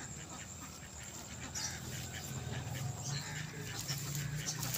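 Leafy bean vines rustling and crackling as they are pulled up by hand and piled, over a steady low rumble.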